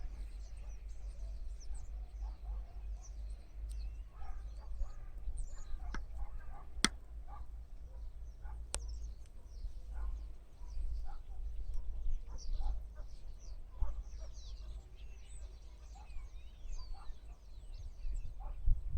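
Birds chirping and calling in many short, high notes, over a low rumble. Two sharp clicks about seven and nine seconds in.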